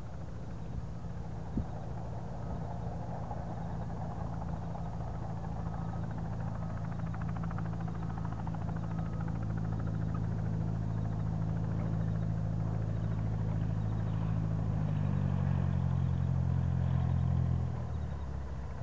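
Cessna 172's piston engine and propeller running steadily at low power, growing gradually louder. Its tone changes about fifteen seconds in, and the sound drops away about three seconds later.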